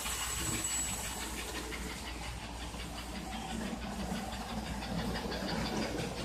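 American Flyer 312 S-gauge model steam locomotive running on its track: a steady rhythmic clicking and hiss over a low electric motor hum.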